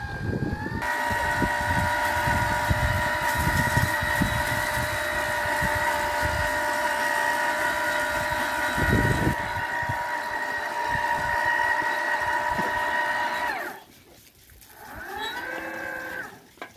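Homemade electric tiller's 60 V 1500 W BLDC motor and gearbox whining steadily under load as it tills, with irregular low thuds underneath. The whine cuts off sharply near the end, and a brief whine bending in pitch follows.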